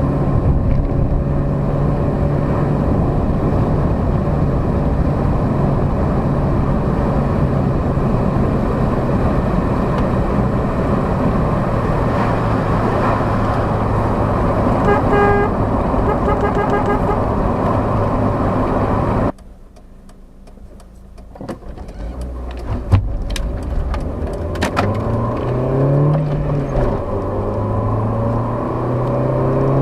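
Rover K-series 1.4-litre 16-valve four-cylinder engine (14K4F) running with a steady hum, with a short run of beeps about halfway through. The sound then drops away suddenly, and the engine comes back revving, its pitch rising and falling a few times, with a few sharp clicks.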